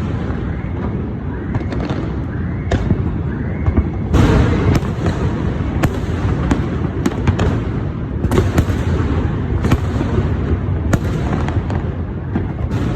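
Fireworks display: a continuous dense crackle and rumble of many shells bursting, with sharp bangs scattered throughout and a loud burst about four seconds in.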